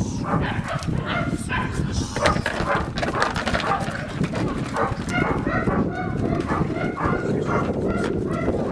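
Two-month-old Belgian Malinois puppy yapping in quick, short, repeated barks while tugging at a toy.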